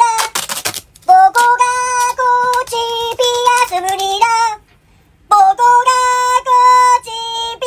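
High-pitched, sped-up-sounding singing voice over a background track, a melody of short held notes. A brief rasping noise comes about half a second in, and the singing breaks off for a moment about five seconds in.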